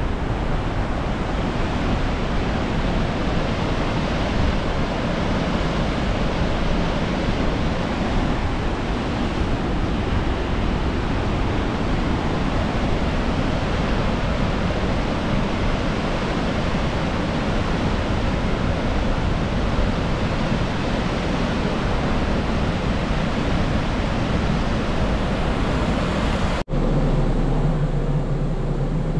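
Steady, loud rush of fast-flowing river water, even and without rhythm. It cuts off suddenly near the end and gives way to a low, steady vehicle hum.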